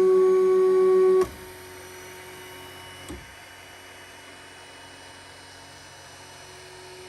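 3D printer running: a steady, pitched motor whine that cuts off abruptly about a second in, leaving a quieter steady hum, with a short click about three seconds in.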